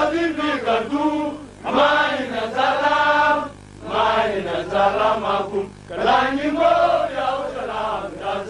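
Voices chanting in about four long phrases, each a couple of seconds long, with short breaks between them.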